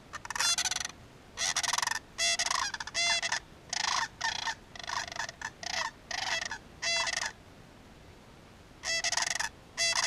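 A pair of sandhill cranes calling together in loud, rolling, rattling calls: a run of calls lasting about seven seconds, a short pause, then two more calls near the end. This is the pair's duet from the nest, one bird calling with its bill raised to the sky.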